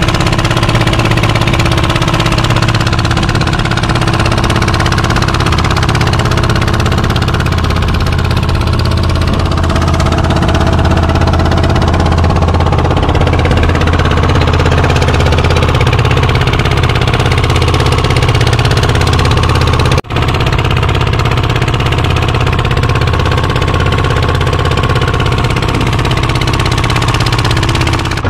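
A fishing boat's engine running steadily as the boat moves under way. The sound cuts out for an instant about 20 seconds in.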